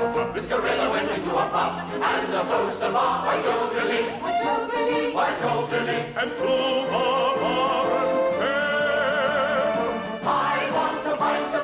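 Mixed choir singing a classical-style choral piece. In the second half the voices hold long notes with vibrato.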